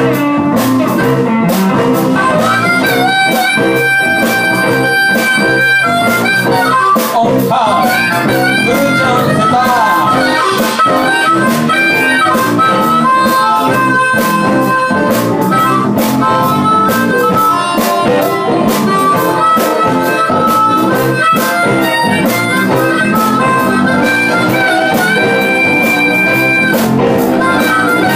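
Live blues band playing: harmonica holding long notes over electric guitars, bass guitar and drums.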